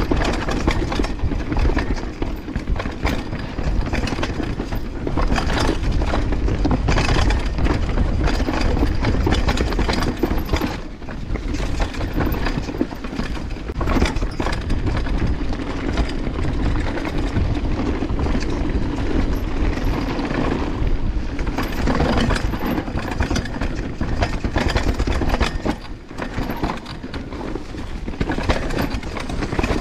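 Banshee Legend downhill mountain bike running down a rough trail: a steady rush of tyres over dirt and rocks, dense with knocks and clatters from the bike. The chain rattles against the frame, a rattle that has not yet been cured.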